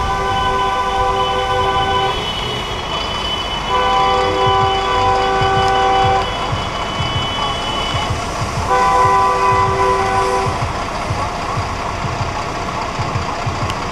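Car horn held down in three long blasts: one running on into the first two seconds, another from about four to six seconds in, and a third from about nine to ten and a half seconds in. Underneath is the steady rumble and hiss of traffic.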